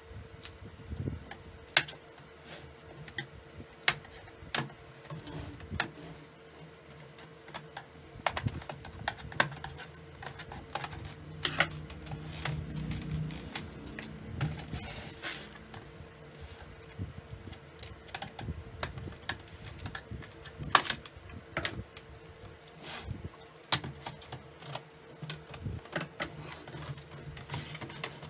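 Irregular clicks and knocks of a plastic LCD monitor housing being handled and turned over on a wooden workbench, with a faint steady hum underneath.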